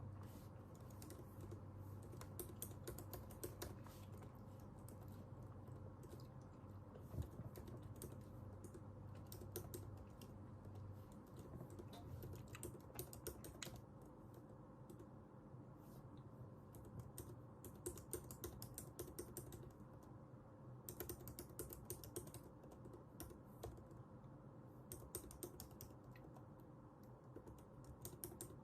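Computer keyboard being typed on in short, quiet bursts of rapid key clicks, with pauses of a second or more between bursts.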